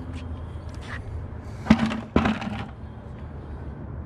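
Two sharp metallic knocks about half a second apart, each with a brief ringing tail: magnet-fishing gear striking the hollow aluminium railing of a pier.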